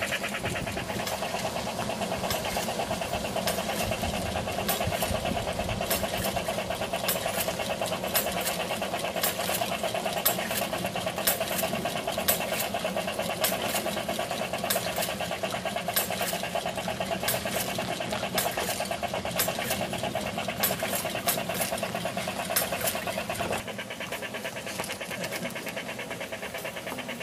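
Large-scale garden model train running close by: the motor and gears whir steadily while the wheels tick over the track in a dense stream of clicks. It drops a little quieter near the end.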